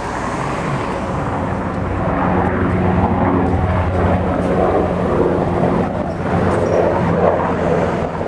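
A steady engine drone with a rough, low hum, getting a little louder about two seconds in.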